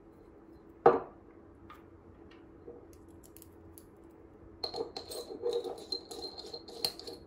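A single sharp knock of an aluminium weapon bar set down on a wooden bench, then, from about the middle on, a quick run of small metallic clicks and clinks as screws are fitted and turned by hand into the bar.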